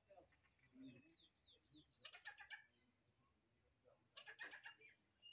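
Racket-tailed drongo calling faintly: a quick run of about five short falling whistles, then bursts of harsh chattering notes about two seconds in and again near the end, closing on a falling whistle.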